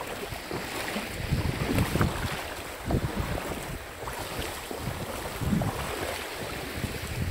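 Wind buffeting the microphone in irregular gusts, over the steady wash of small waves in shallow water on a sandy tidal flat.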